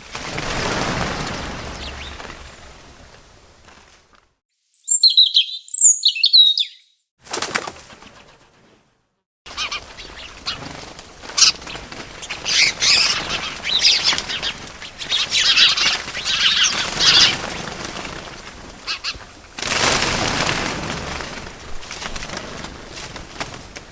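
Bird sounds: a whoosh of fluttering wings, then a few loud, high chirps in a near-silent pause, followed by busier chirping and flapping, with another whoosh of wings near the end.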